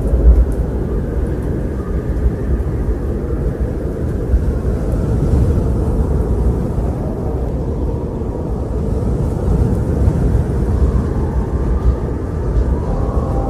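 Eerie wind blowing steadily in deep, gusting low rumbles, with faint higher tones entering near the end.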